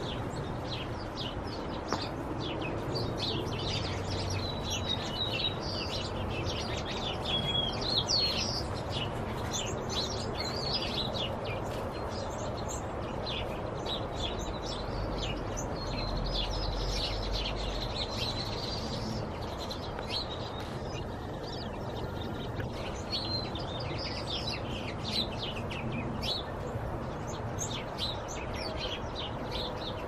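A flock of small birds calling together in a tree: many short, overlapping chirps with a few brief trills mixed in.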